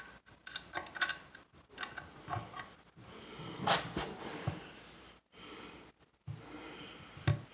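Scattered light clicks and taps as a cabinet door hinge is handled and positioned against a cabinet door, with a soft rustle about halfway through.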